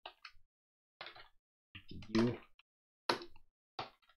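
A few short, separate bursts of typing on a computer keyboard, with a brief voiced sound about two seconds in.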